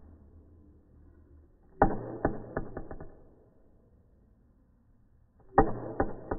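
Drumstick strokes on a drum practice pad. A short run of about five hits comes about two seconds in, and another run starts near the end. Each run opens with its loudest stroke and the later ones fall away.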